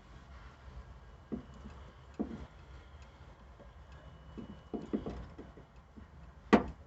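Hands working in a pickup's cab: scattered light clicks and taps of handling, with one sharper knock near the end.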